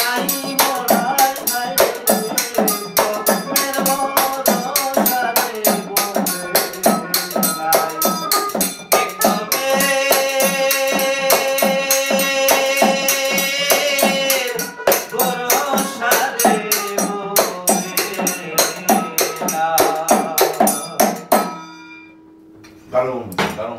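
Men singing a folk song to a plucked string instrument, a small hand drum and fast, steady jingling percussion. The music stops about two seconds before the end, followed by a brief clink.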